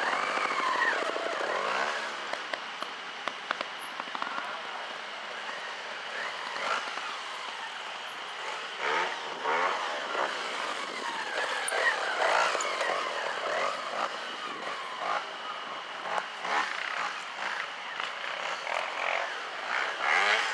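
Trials motorcycle engine revved in repeated short throttle bursts, its pitch rising and falling, with a few sharp clicks among them.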